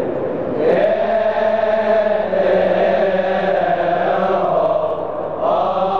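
Male choir of Coptic deacons singing a Coptic hymn in unison, holding long chanted notes, with a new phrase starting about a second in and another near the end.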